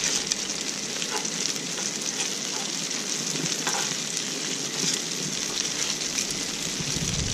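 Seasoned flathead fillets frying in hot oil in pans on a barbecue: a steady sizzle with a few scattered crackles.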